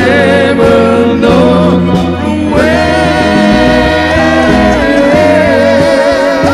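A male lead vocalist sings live with a pop band behind him. He changes notes in the first half, then holds one long note with vibrato.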